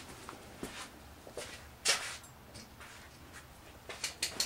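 Faint, scattered clicks and light knocks from handling on a workbench. The loudest comes about two seconds in, and a few more come close together near the end.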